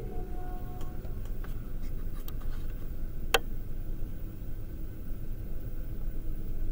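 Steady low background rumble of an indoor room, with one sharp click about three and a half seconds in and a few faint ticks.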